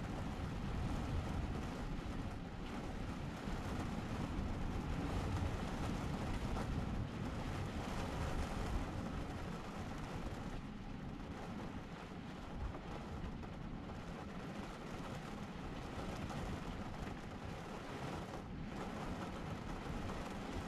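Heavy rain pouring steadily on a camper van, heard from inside the van, a little softer in the second half.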